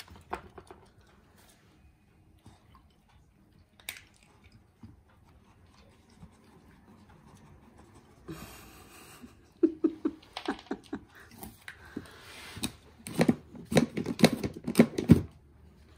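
Dog crunching dry kibble: irregular crisp chewing crunches, sparse at first and coming thick and fast in the second half.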